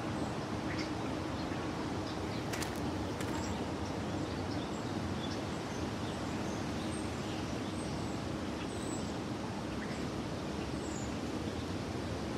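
City street ambience: a steady hum of distant traffic with small birds chirping now and then, and a couple of faint clicks.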